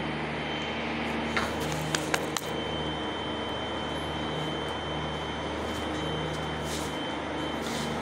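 Steady industrial machinery hum with a constant high whine running through it, and a few light clicks about two seconds in.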